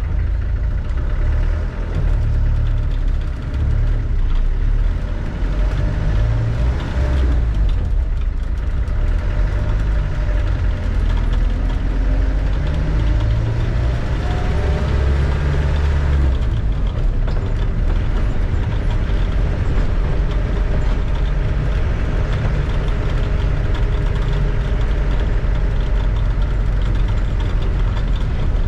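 Land Rover Defender with a freshly rebuilt engine driving: a steady, deep engine rumble whose pitch rises and falls a little around the middle.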